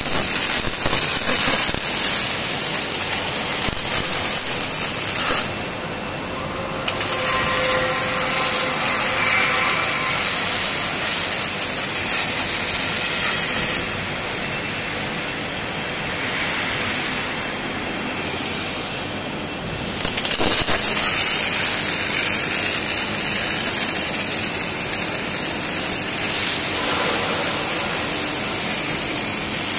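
Wire-fed MIG arc welding: the arc crackles and sizzles steadily as intermittent stitch welds join a steel trailer main beam's flanges to its web. The sound breaks off briefly about six seconds in and again near twenty seconds, between welds.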